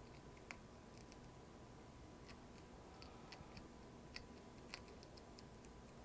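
Faint, irregular small ticks and clicks over near silence, as the wire strands at the end of a throttle cable are picked apart and spread out with the fingers.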